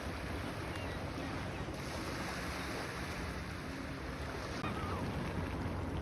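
Small Lake Ontario waves washing steadily onto a rocky, pebbly shore, with wind rumbling on the microphone. A faint gull call comes near the end.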